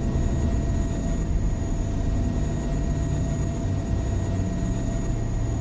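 Helicopter engine and rotor noise heard inside the cabin: a steady low rumble with a faint constant whine above it.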